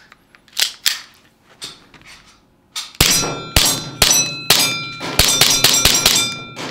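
VFC SIG M18 gas-blowback airsoft pistol being fired about ten times in quick succession, each shot a sharp crack followed by metallic ringing. A few light handling clicks come before the shooting starts, about three seconds in.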